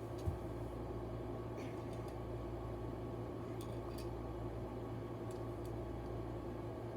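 Steady low hum with one soft bump just after the start and a few faint scattered clicks: a plastic novelty cube that doesn't turn being handled and felt over to find where it opens.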